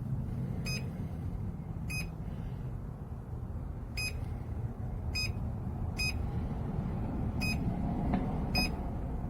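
Touch keypad of a eufy Security C210 smart lock beeping as a passcode is tapped in: seven short, high beeps, spaced about one to two seconds apart, over a low steady background rumble.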